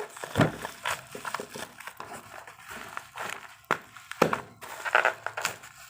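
Parcel packaging crinkling and rustling in the hands as the contents are pulled out, with irregular crackles and a few sharper snaps.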